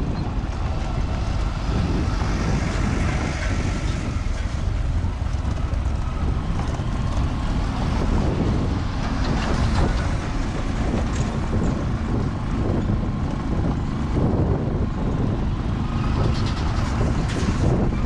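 Steady rumble of a vehicle travelling over an unpaved gravel road, with a dump truck passing close by about halfway through.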